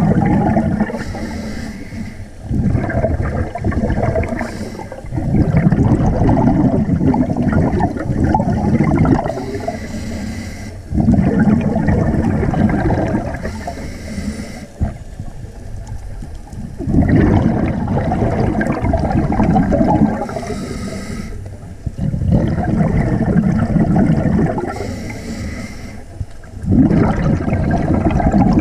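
Scuba diver breathing through a regulator underwater: each exhale is a few seconds of loud bubbling, each inhale a short hiss, repeating about every five to six seconds.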